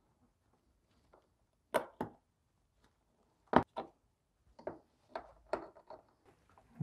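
Sharp clicks and taps of metal speed nuts being pressed onto studs on the back of a plastic car fascia with a small metal tool: two pairs of sharp clicks, then a run of lighter ticks.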